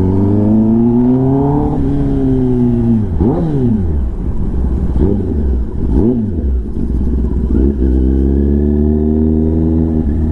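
Kawasaki ZX-10R inline-four engine through an SC-Project titanium exhaust under way: it pulls up in pitch for about two seconds, drops off, gives several quick rise-and-fall blips, then pulls steadily again near the end.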